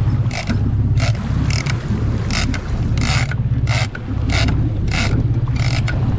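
Big-game trolling reel ratcheting in short repeated bursts, about two a second, while a bluefin tuna is fought on the line. Under it, a boat engine gives a steady low drone.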